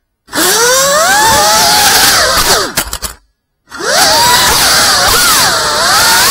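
Brushless motors and propellers of a GEPRC Mark 5 FPV quadcopter whining, several tones gliding up and down together with the throttle. The sound cuts out abruptly twice: at the very start, and for about half a second just after three seconds in.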